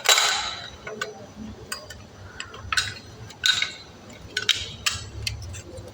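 A series of sharp clicks and clinks from small hard objects being handled, the loudest right at the start, then about five more spread unevenly after it.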